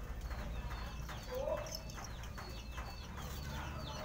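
Birds chirping over and over in short, falling chirps, with one louder short rising call about a second and a half in, over a steady low hum.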